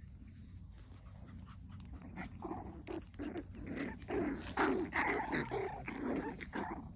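Puppies growling in play as they tussle over their mother: a quick string of short, small growls that starts about two seconds in and stops just before the end.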